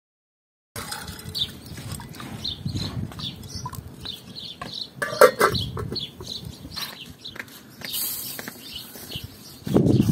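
Chickens clucking, with a loud cluck about five seconds in, among small birds chirping.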